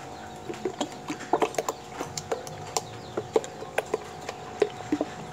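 A metal spoon stirring a wet bread, milk, cheese and egg batter in a plastic bowl, knocking and clicking against the bowl irregularly, about two or three times a second.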